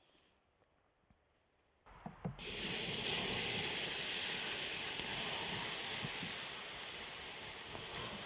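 Food sizzling over hot coals: a steady hiss with faint crackles that starts suddenly about two seconds in.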